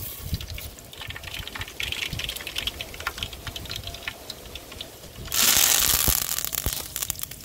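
Light crackling, then about five seconds in a loud hissing rush for about two seconds, typical of liquid being poured into a large hot cooking pot.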